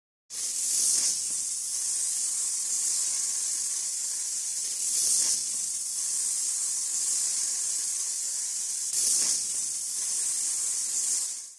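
A steady high-pitched hiss of a spray or air jet. It starts suddenly, swells louder three times about four seconds apart, and cuts off shortly before the end.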